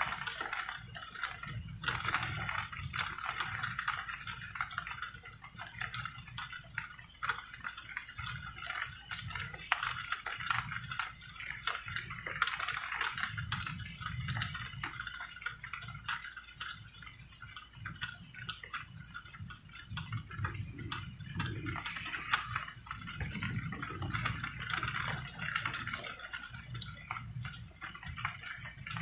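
Rain falling steadily, with many close drops pattering and dripping irregularly, over a low rumble that swells and fades.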